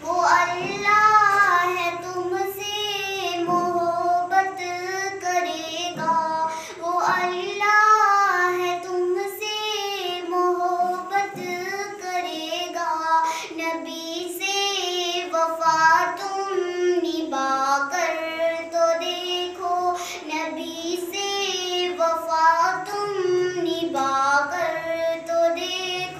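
A young girl singing a naat, an Islamic devotional song, solo and unaccompanied, her single voice wavering through long ornamented phrases.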